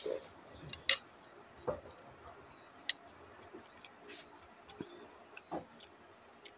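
A person eating a meal: scattered small clicks and smacks from a spoon and chewing, the loudest click about a second in.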